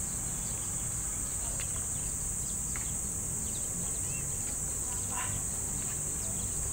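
Steady high-pitched insect buzzing over a low, even rumble of road traffic, with a few faint short chirps.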